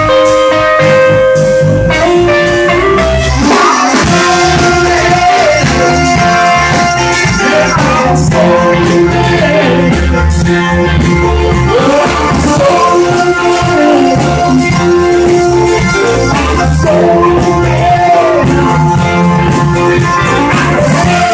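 Live rock band playing loudly, with an electric guitar and steady bass underneath; a man's singing voice comes in about three to four seconds in and carries on over the band.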